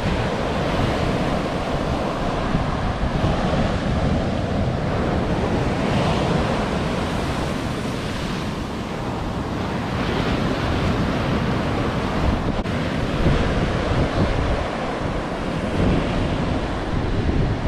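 Ocean surf washing and breaking on a sandy beach, with wind buffeting the microphone.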